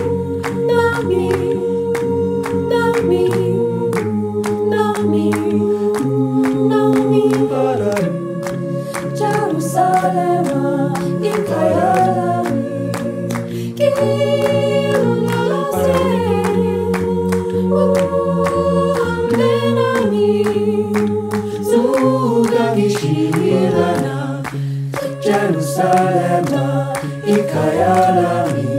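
A cappella vocal group singing in harmony: held chords that change every couple of seconds under a moving lead melody, with sharp percussive clicks keeping time.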